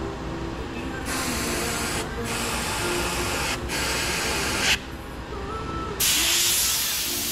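Compressed air hissing in blasts through a truck's fuel-tank vapour lines to blow out the charcoal clogging them. Three bursts come in the first five seconds, the third ending in a sharp pop, then a longer, louder blast from about six seconds in.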